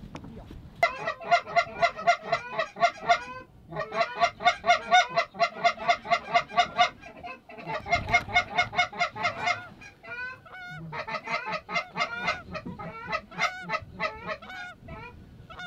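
Loud, rapid strings of Canada goose honks and clucks, about three a second, in three long runs broken by short pauses, then looser and fainter calls toward the end.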